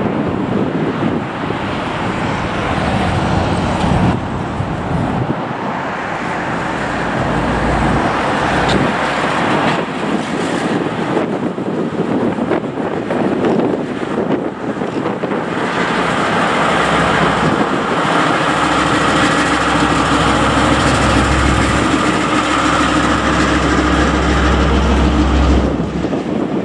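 KiwiRail DL class diesel-electric locomotive running past with a second locomotive in tow. Its steady engine drone grows fuller about halfway through as it draws close, with a deep rumble under it until it passes.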